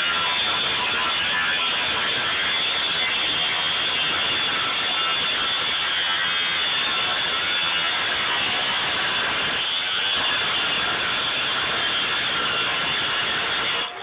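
Angle grinder with a cutoff wheel cutting through the steel wall of a tank, running steadily under load.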